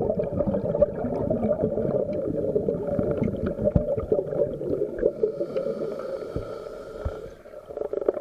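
Scuba divers' exhaled bubbles from their regulators rushing and crackling, heard underwater, with a faint steady whine for a second or two past the middle and a brief dip near the end.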